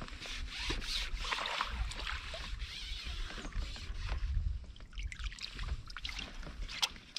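Water splashing and sloshing mixed with rustling and light knocks, quieter in the last couple of seconds, with one sharp click near the end.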